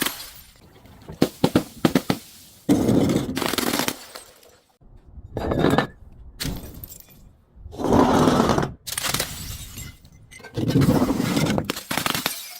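Glass breaking and crunching, about five times, each break about a second long and coming every two to three seconds, with a quick run of sharp cracks about one and a half seconds in.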